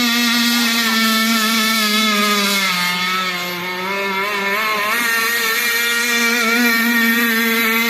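Motor of an RC catamaran boat running hard with a steady whine; the pitch dips about three seconds in and climbs back about two seconds later as the throttle or load changes.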